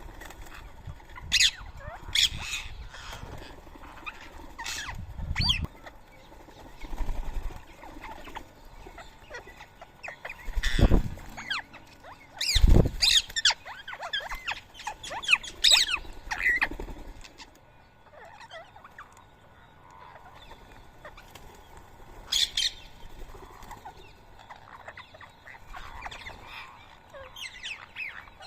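Rose-ringed parakeets giving short, shrill calls in irregular bursts, busiest in the middle. Two loud low thuds come about eleven and thirteen seconds in.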